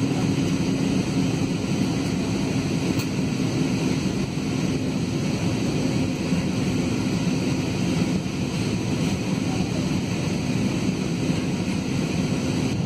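Steady cabin noise of a jet airliner in flight, heard from a window seat: an even rush of engine and airflow with a steady low hum underneath, during the descent toward landing.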